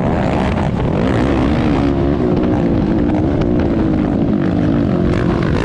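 ATV engine running steadily, its pitch wavering slightly.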